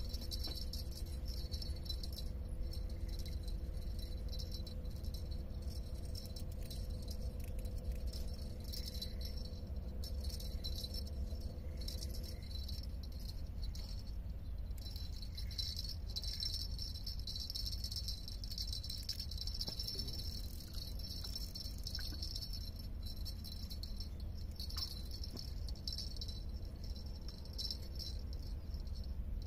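Spinning reel being wound, with a steady rattling click of its gears and drag as a hooked fish is played; it pauses briefly twice. Wind rumbles on the microphone underneath.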